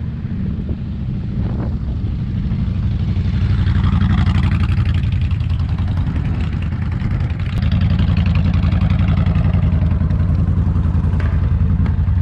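Cruiser motorcycle V-twin engines running with a fast pulsing beat. One bike passes close and grows louder about three to six seconds in. From about seven and a half seconds a bike's engine is louder and steady as it rides on the dirt track.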